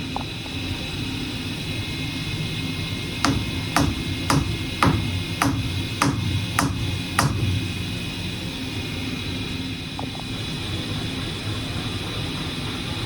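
Hurco CNC milling machine running steadily with a constant hum and whine. Partway through come eight sharp knocks in a row, about half a second apart.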